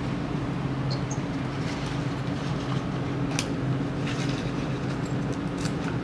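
Steady low mechanical hum. A few light clicks and rustles sound as the plastic valve lockout and metal padlock are handled, the clearest about three and a half seconds in and near the end.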